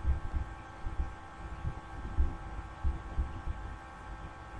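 Quiet room tone: a steady electrical hum with faint, irregular low thumps.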